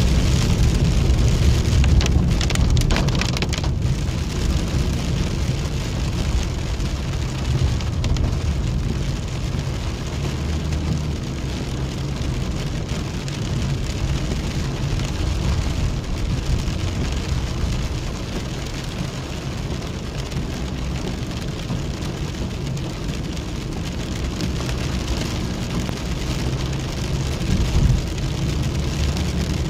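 Rain pattering on a moving vehicle's glass and body, heard from inside, over the steady low rumble of the engine and tyres.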